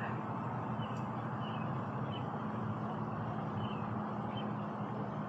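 A steady background hum and noise, with a small bird chirping faintly: a run of short high chirps at an even pace.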